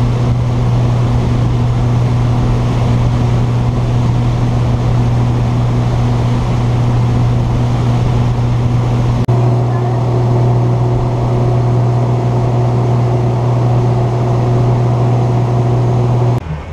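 Fishing boat's engine running steadily at cruising speed, a low drone over a steady rush of wind and water. The tone of the drone shifts slightly about nine seconds in.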